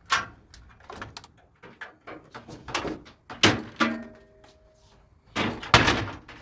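Clicks, knocks and plastic-and-metal clatter from a General Electric dryer's door and panel being handled and disconnected, the loudest knocks about a second in and near the end, with a faint brief squeak midway.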